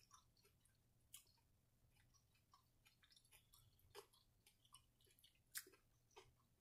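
Faint chewing of crispy fried catfish: soft, irregular wet mouth clicks and crunches, with a few sharper crunches about a second, four seconds and five and a half seconds in.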